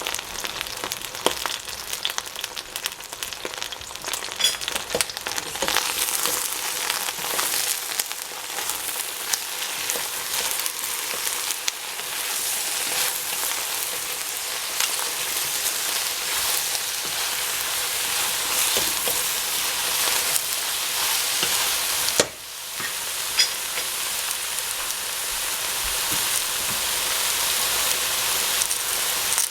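Eggplant frying in hot oil in a pan: a steady sizzle with scattered crackles and pops. About two-thirds of the way through it drops out briefly, then comes back.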